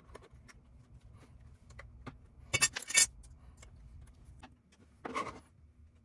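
Small metal parts clinking and rattling as the unit is handled, with scattered light clicks. The loudest is a brief metallic jingle about two and a half seconds in, and a duller knock comes near the end.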